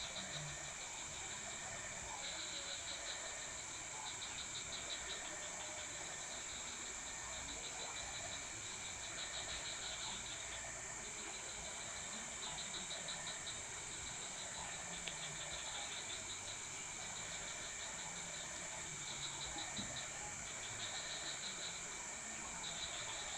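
Night insects chorusing: a continuous high-pitched drone with a lower, pulsing cricket-like trill that comes in repeated bouts of a second or two.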